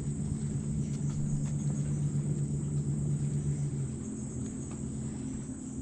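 A steady low mechanical hum, with a high, unbroken insect chirring above it and a few faint clicks.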